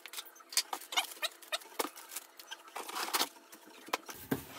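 Handling of packaging: grey packing foam and cardboard inserts rustling, scraping and rubbing as they are lifted out of a shipping box. The sound is an irregular run of small scratches and clicks.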